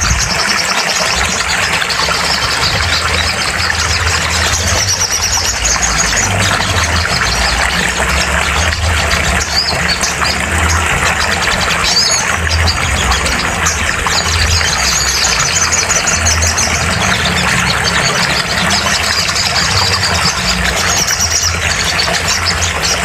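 Little spiderhunter (sogok ontong) song played as a bird-training recording: phrases of rapid, high chattering trills repeated every few seconds, over a dense noisy background with a low pulsing hum.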